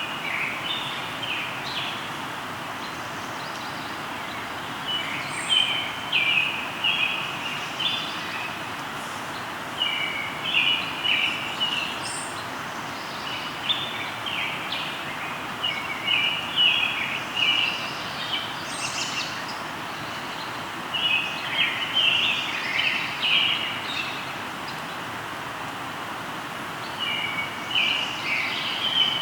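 Birds singing at dusk in short phrases of quick, choppy notes, a phrase every few seconds, over the steady rushing of a flowing river.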